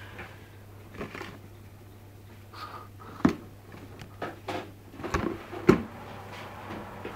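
A clear plastic food container knocking and scraping on a table as a cat nudges it about, a run of hollow clatters with the loudest about three and five and a half seconds in. A steady low hum runs underneath.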